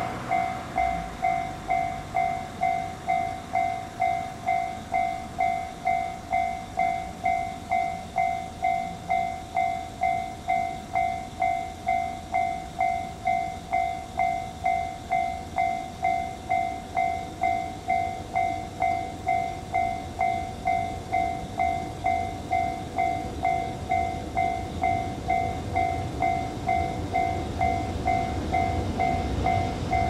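Japanese railway level-crossing warning bell ringing: an electronic two-tone ding repeating about twice a second. A low rumble builds underneath near the end.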